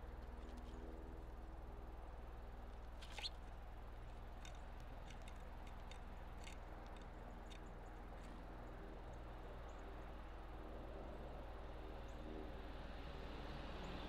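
Faint low steady hum with a few short, high chip notes from small songbirds at a seed feeder. The loudest note comes about three seconds in, and a few fainter ones follow over the next few seconds.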